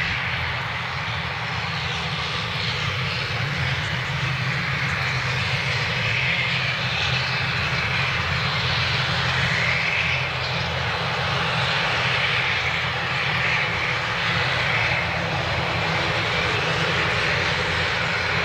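ATR 72-600 twin turboprop engines (Pratt & Whitney PW127) running as the aircraft taxis on the runway: a steady low propeller hum under a wavering whine-and-hiss.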